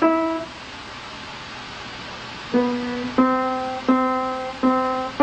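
Single piano notes struck one at a time, each ringing and fading. One note sounds at the start; after a gap of about two seconds, four more follow about two-thirds of a second apart, mostly on the same key.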